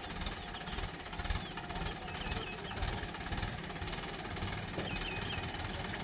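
Swaraj farm tractor's diesel engine running with a steady, rapid knocking rattle.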